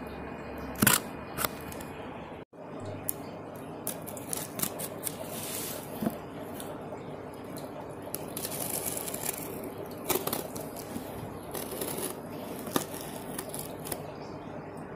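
Small craft knife slitting packing tape along the seams of a cardboard box: scattered scrapes, clicks and crackles of tape and cardboard over a steady background hum.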